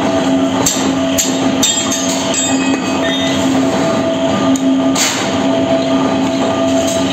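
Steady loud roar of foundry machinery with a constant hum, overlaid by several sharp metallic clinks that ring briefly, from the steel ingot moulds and tools being handled. The clinks come in the first two seconds and once more about five seconds in.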